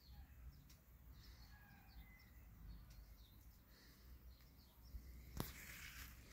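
Near silence, with faint, short, high chirps now and then and one sharp click about five seconds in.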